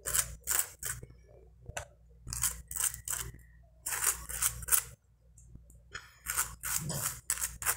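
Table knife scraping margarine onto the inside of a split crusty bread roll, in short scraping strokes that come in quick runs of two to four with brief pauses between.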